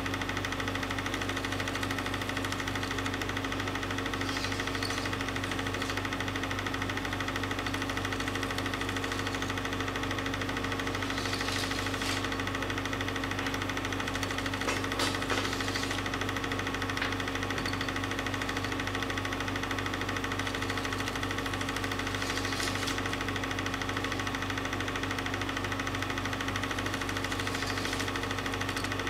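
Film projector running steadily, a constant mechanical hum that never changes in pitch or level, with a few faint clicks now and then.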